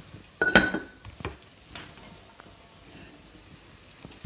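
Minced garlic and ginger sizzling in sesame oil in a stainless steel wok, with a steel ladle stirring. About half a second in the ladle scrapes the wok with a brief ringing clank, followed by a few light taps.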